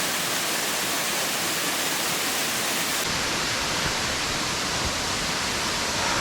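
Waterfall pouring into its plunge pool: a steady, dense rush of falling water. About three seconds in the sound turns duller.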